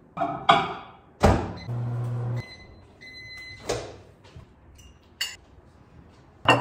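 Over-the-range microwave in use: its door is handled and banged shut, the oven hums briefly, and it gives electronic beeps. A dish clatters in between.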